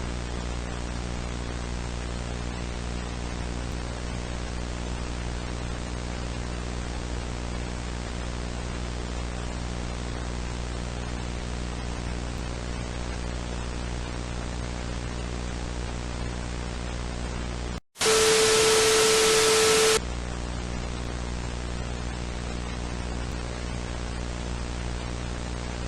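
Steady electrical hum and hiss of static. About two-thirds of the way through it drops out for an instant, then gives way to two seconds of loud static with a steady tone in it, and the hum and hiss come back.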